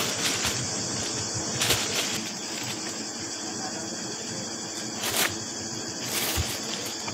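Cicadas singing in a steady, high, hissing chorus, with a few brief knocks partway through.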